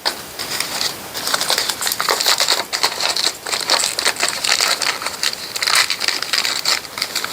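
Plastic toy packaging crinkling and crackling, handled and torn open by hand in a dense run of small crackles.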